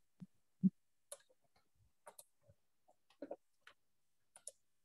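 Faint, scattered clicks and ticks, about a dozen, irregularly spaced, with two short low blips in the first second.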